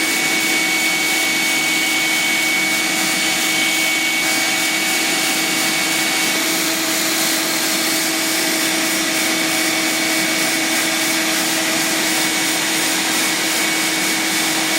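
Electric power tool running steadily, a constant motor hum with a high whine over an even rushing noise.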